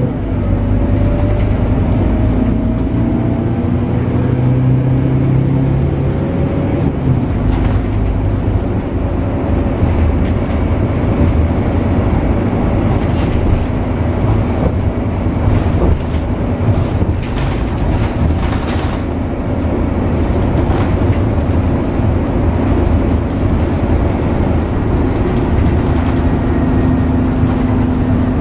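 Interior sound of a Scania K94UB city bus under way: the 9-litre six-cylinder Scania DC9 diesel drones steadily with road noise. Its note climbs over the first seven seconds or so, then changes, and a scatter of clicks and rattles comes through in the middle.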